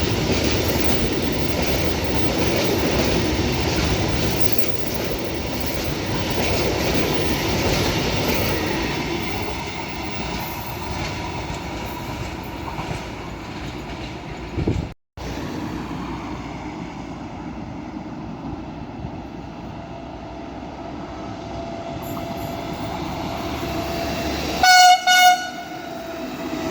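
A freight train rolling past on the rails, with wheel and rail noise that fades after the first several seconds. After a break, an approaching train's electric-locomotive horn sounds two short blasts near the end, and rolling noise starts to build.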